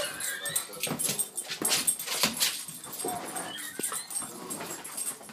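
A Doberman whining and whimpering in eager excitement for treats, with short cries between quick knocks and scuffs as she dashes about.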